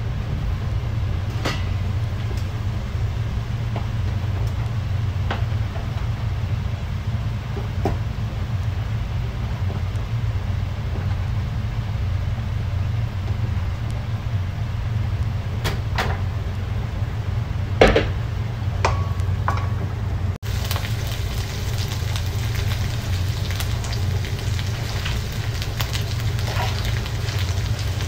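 Blended onion and garlic sizzling quietly in a pan over a steady low hum, with a few knocks of a wooden spoon against the pan, the loudest about eighteen seconds in.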